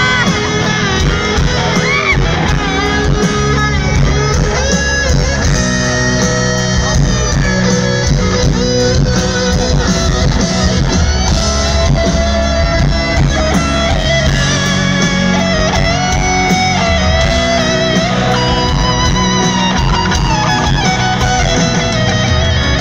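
Live rock band playing loudly: a lead electric guitar plays sustained, bending and sliding notes over a piano and band backing, with no singing.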